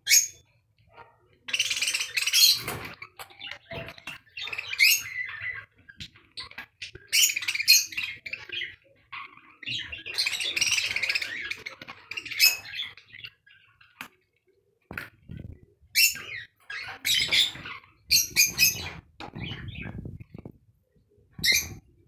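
Budgerigars chattering and chirping in bouts of one to three seconds, with short pauses between.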